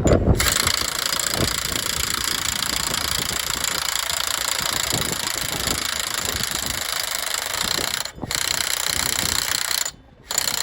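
Cordless impact wrench hammering a nut down tight, a long continuous rattling run with a brief break near the end, then stopping. The nut is running tight on its threads, which the mechanic thinks needed oil.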